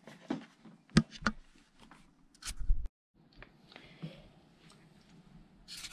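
Handling noise: a few sharp clicks and knocks with a brief low rumble that cuts off abruptly about three seconds in, followed by a faint hiss and more clicks near the end.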